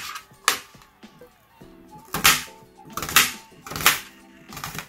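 Kitchen knife slicing through a red onion, the blade knocking sharply on the tray about six times at uneven intervals, over background music with held notes.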